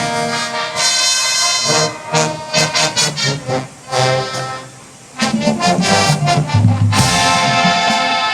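High school marching band's brass section playing, with short punched notes, a brief drop in volume about four seconds in, then low brass coming back in and a loud held chord near the end.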